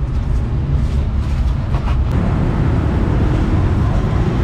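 Street traffic noise: a steady rumble of passing cars and motorbikes.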